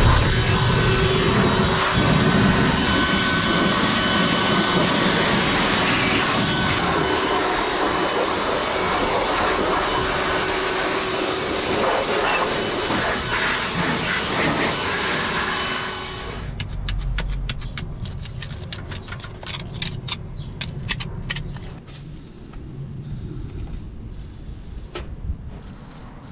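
Cordless battery leaf blower running steadily at full blast with a high whine, blowing debris off the truck, then cutting off suddenly about two-thirds of the way in. A quieter run of light clicks and knocks follows.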